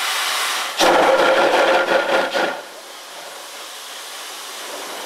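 Steam locomotive venting steam: a sudden loud hissing blast about a second in that lasts under two seconds, a softer steady hiss after it, and another blast starting at the very end.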